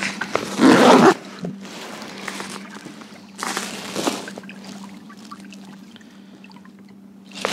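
Water trickling and sloshing along the hull of an electric-motor kayak under way, over a steady low hum from its motor drive. A louder splash comes about half a second in, and a smaller one a little after three seconds.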